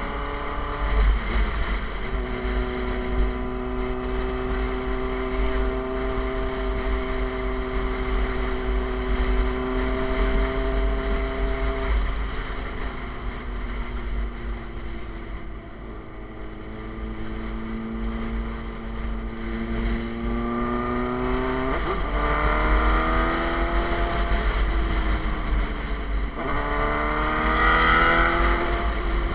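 Suzuki GSX-R motorcycle engine through an SC-Project aftermarket exhaust, with wind rumble on the microphone. It holds steady revs at first, eases off about 12 s in, then accelerates hard through the gears. The pitch climbs and drops at each upshift, twice near the end.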